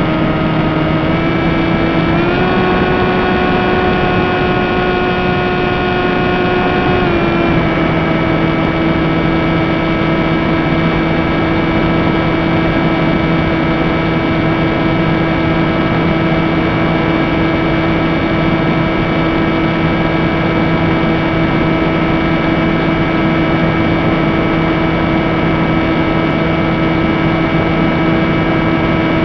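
Electric motor and propeller of an FPV model aircraft, heard through its onboard camera, running with a steady whine over wind rush. The pitch steps up twice in the first few seconds as the throttle is raised, drops back about seven seconds in, and then holds steady.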